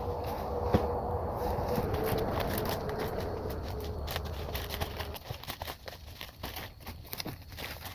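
Irregular rustling and crackling made of many small sharp clicks, over a low steady hum that fades about five seconds in.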